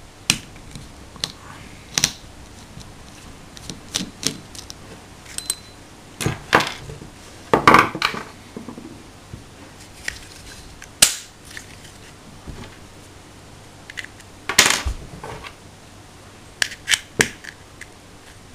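Small metal clicks, taps and knocks from a hex key and parts being worked on a Hi-Capa 3.8 airsoft pistol and set against a wooden table, at irregular intervals. There are two longer scraping rasps, about eight seconds in and again near fifteen seconds.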